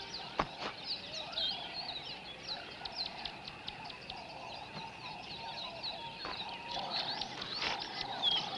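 Tropical forest ambience: many birds chirping and trilling together, with a steady run of lower calls beneath. A single sharp click sounds about half a second in.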